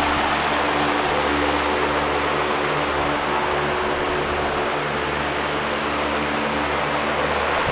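A steady machine hum over a constant hiss, like a running fan, unchanging throughout.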